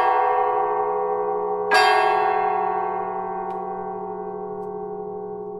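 Orthodox church bells ringing: one stroke sounds across several bells about two seconds in, then their ring hangs on and dies away slowly.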